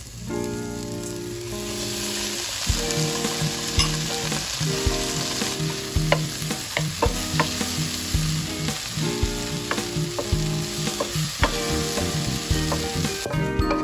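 Onion and tomato pieces frying in a nonstick pan: a steady sizzle that swells about two seconds in, with the scrape and sharp taps of a wooden spatula stirring them.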